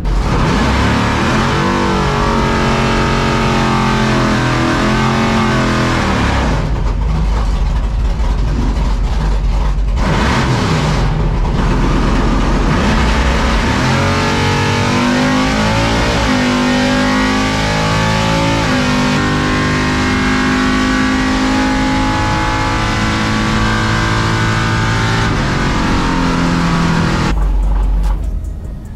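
A 700 hp Chevrolet C10 drag-racing pickup's engine running and revving through a test pass, with background music mixed in. The sound stays loud and steady, then drops away sharply near the end.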